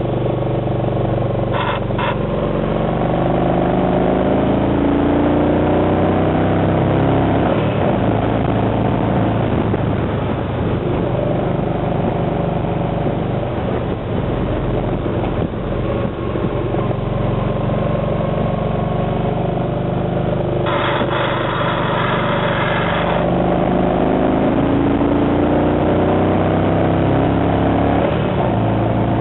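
Yamaha V Star 950's V-twin engine running under way, its pitch rising and falling as the throttle opens and closes through the curves, heard from the rider's seat with road and wind noise. About two-thirds of the way through, a harsh scraping sound lasts a couple of seconds, the footboards touching down in a lean.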